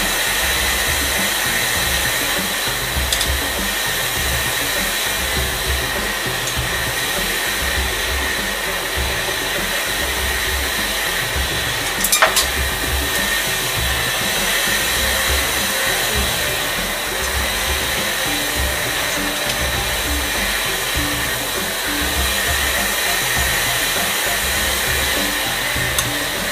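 Steady whirring machine noise with a slow low throb, with a short knock about twelve seconds in and another near the end.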